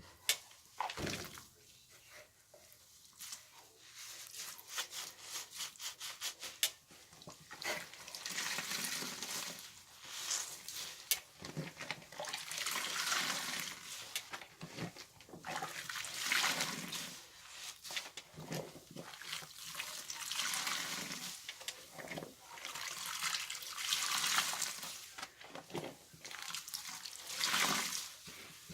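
Soapy wet blankets squeezed by hand in a washing machine, squelching as water and suds are pressed out. A quick run of crackling squishes comes first, then slower, longer squeezes every couple of seconds.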